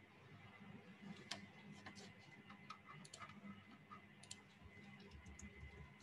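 Near silence with a few faint, scattered computer-mouse clicks over a low steady hum.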